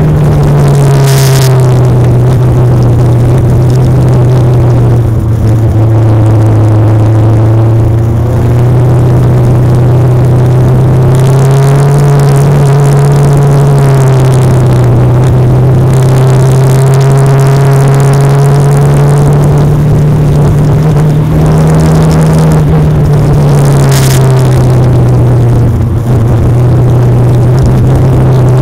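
Legend race car's Yamaha four-cylinder motorcycle engine running hard under racing load, its pitch easing off and climbing back several times as it lifts for the corners and pulls down the straights. There are two brief sharp noises, one about a second in and one near the end.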